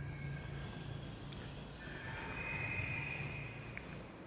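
Insects trilling steadily in a high-pitched, unbroken tone, joined by a second, lower trill for a couple of seconds in the middle, over a low steady hum.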